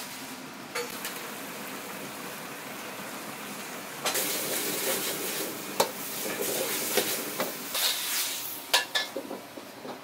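Food sizzling as it fries in a pan, the sizzle growing louder about four seconds in, with several sharp metal knocks of a utensil against the pan.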